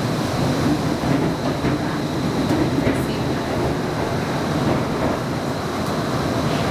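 Interior of an Inekon Trio low-floor streetcar in motion: a steady rumble of the wheels on the rails and the running gear. A steady high whine runs above it.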